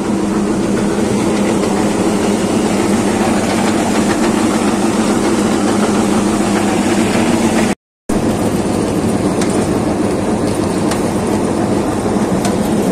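Bulk feed truck's engine and feed-drawing machinery running steadily under load, pulling feed out of a silo into the truck. A steady, loud drone with a constant low hum, cut off for a split second about eight seconds in.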